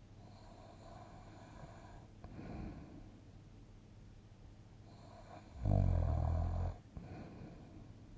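A sleeping person breathing softly, then one loud, low snore lasting about a second, a little past the middle.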